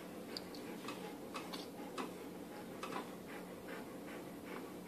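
Faint, irregular soft clicks and scratchy rustles as a grooming brush is drawn over a cat's head and fur, over a steady low hum.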